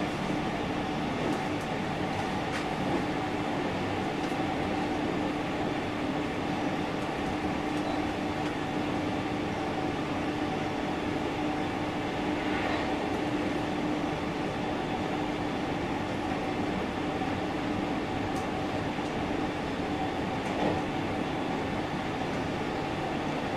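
Running sound of a JR Central 313 series 1100-subseries electric train: a steady rumble of wheels on rail with a constant electrical hum, and a few faint knocks from the track.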